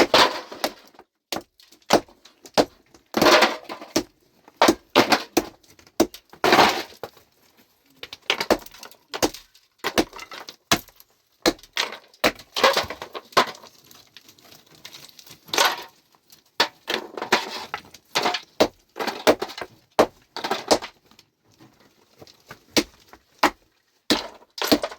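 Stones knocking and clattering against each other in an irregular run of sharp strikes, a few heavier ones among many lighter clinks.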